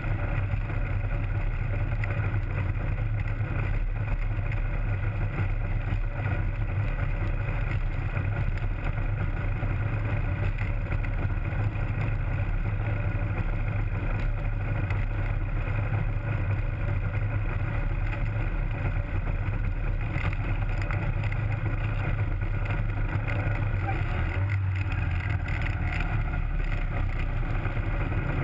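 Rotax 503 two-cylinder two-stroke engine of a Hy-Tek Hurricane 103 ultralight running steadily at taxi power, its propeller turning, with a slight dip in the drone a little past 24 seconds as the aircraft turns.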